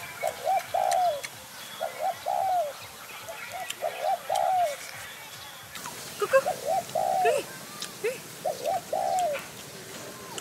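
A dove cooing over and over: about five phrases, each of two or three short notes and a longer drawn-out coo, roughly every two seconds.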